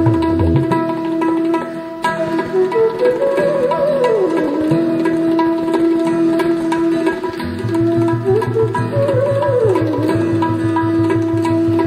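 Tabla drumming over a melodic line that slides down in pitch and then holds a long note, three times over. About halfway through, a fast, even run of low drum strokes comes in.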